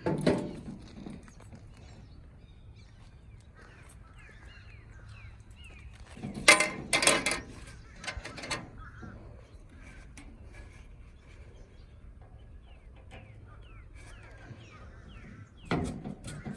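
Several loud knocks and rattles, the loudest cluster about halfway through, with faint birds chirping in the background between them.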